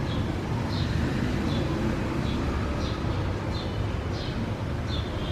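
A small bird chirping over and over, short high chirps about one and a half times a second, over a steady low rumble.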